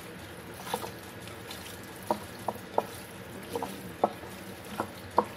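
Raw chicken thighs being mixed by hand in a glass bowl: irregular short wet squelches and slaps, about eight in five seconds, the loudest near the end.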